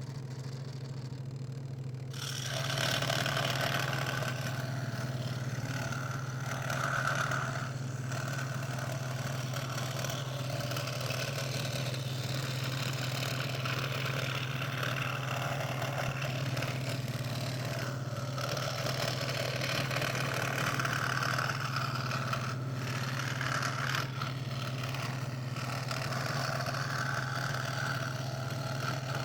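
Scroll saw running with a steady motor hum. From about two seconds in, its reciprocating blade cuts through thin 3 mm craft plywood with a continuous rasping noise that swells and eases as the cut goes on.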